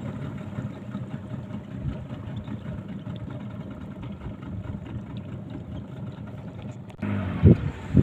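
Small fishing boat under way, its engine running steadily with water rushing along the hull. About seven seconds in the sound abruptly gets louder, with a heavy low thump just before the end.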